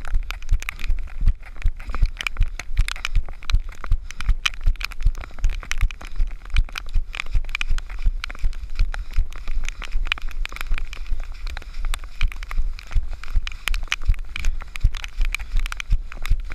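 A runner's footsteps splashing and thudding on a wet, muddy dirt track, a steady thud about three times a second, heard from a camera worn by the runner so each stride jolts it.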